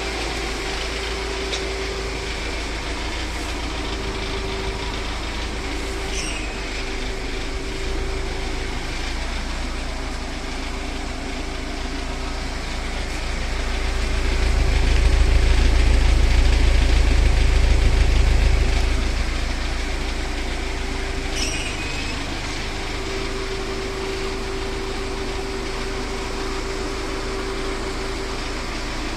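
Freshly rebuilt VAZ-2109 (Lada Samara) four-cylinder petrol engine running steadily after a full overhaul. About halfway through it gets louder and deeper for several seconds, then settles back.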